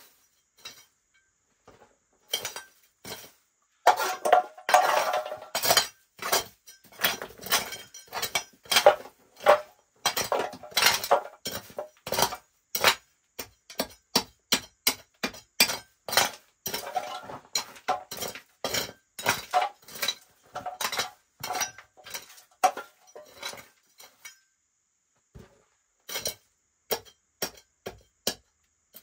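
Small metal hand shovel digging into stony, gravelly ground: a long run of sharp clinks and scrapes as the blade strikes stones and gravel, with a short pause near the end before a few more strikes.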